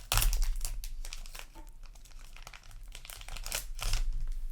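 Foil booster pack wrapper crinkling and crackling as it is handled and torn open, with louder bursts near the start and again near the end.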